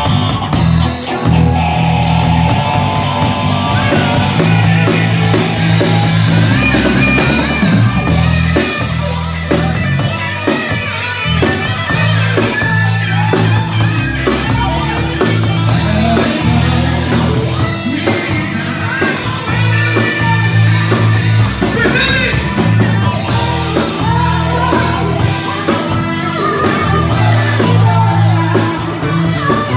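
Live rock band playing loudly: electric guitar, drum kit and a heavy bass line, with singing over the top.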